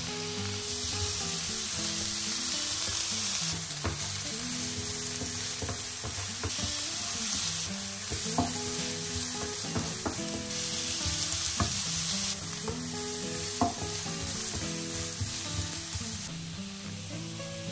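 Diced carrots sizzling in hot olive oil in a nonstick frying pan, stirred with a wooden spatula. The hiss swells and eases as the carrots are pushed around, with the spatula knocking or scraping on the pan every couple of seconds.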